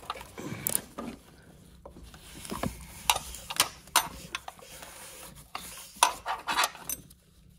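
Irregular metallic clicks and scraping from a wrench being fitted to and worked on a rusted bracket bolt, mixed with a gloved hand and arm rubbing against the hoses and panels around it.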